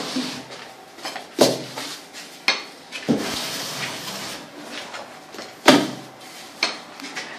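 Plastering trowel working wet cement render on a wall: rasping scrapes broken by about five sharp knocks of the tool.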